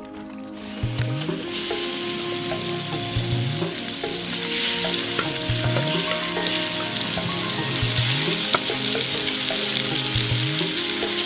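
Sliced onions and pieces of marinated fish frying in hot oil in a metal pot, sizzling steadily. The sizzle starts about a second in and grows louder around four and a half seconds in. Soft background music plays underneath.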